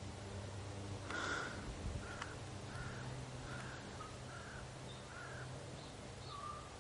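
A bird calling about eight times in short, evenly repeated calls; the first is the loudest. Under the calls runs a faint, steady low drone from the distant biplane's engine.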